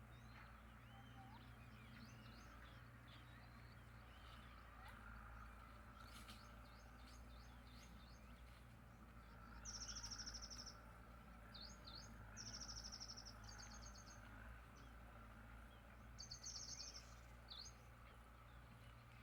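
Birds chirping faintly over a low steady background hum, with three louder short, rapid, high-pitched trills about ten, thirteen and seventeen seconds in.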